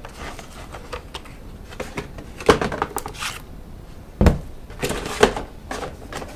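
Unpacking sounds: black packing caps rustled and pulled off a WD My Cloud drive enclosure, with several sharp knocks and a heavy thud about four seconds in as the unit is handled on the desk.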